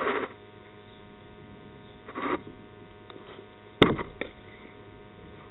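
A cricket bat striking the ball once, a sharp crack nearly four seconds in, as the shot goes for four. Before it, two short bursts of noise over a steady low hum.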